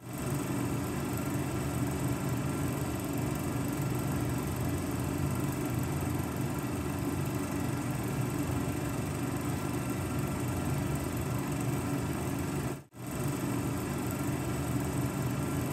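Steady droning hum of a small motor with hiss; it cuts out for a moment about thirteen seconds in, then resumes.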